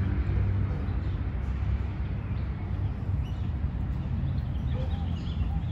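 Outdoor city-park ambience: a steady low rumble with a general hum above it, and from about three seconds in, birds chirping with short, repeated calls.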